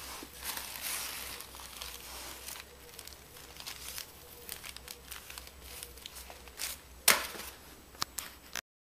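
Paper crinkling and rustling, with many small crackles and one sharp, loud crackle about seven seconds in. The sound cuts off suddenly near the end.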